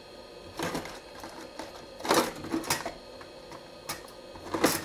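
A few short scraping and clattering noises, about five, of objects being handled on a workbench, as the repairer reaches for things to clean a freshly soldered phone charging connector.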